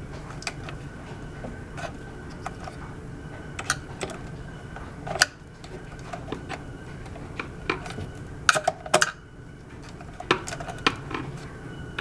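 Irregular small clicks and taps of a screwdriver working screws out of a hoverboard's plastic shell, with a cluster of louder clacks about two thirds of the way through as screws or parts are handled and set on the tabletop.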